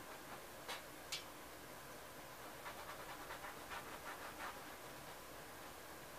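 Faint scratchy strokes of a paintbrush dabbing and dragging oil paint on a stretched canvas, a quick run of them in the middle, with two short sharp ticks about a second in, over a steady hiss.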